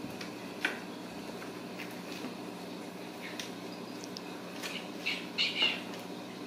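Kittens at play: a few short, sharp, high scrabbling sounds, one just under a second in and a cluster about five seconds in, over a steady low hum.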